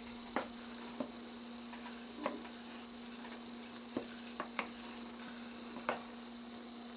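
Honey boiling in a pan on the stove, with scattered pops and light clicks, about one a second, over a steady hum.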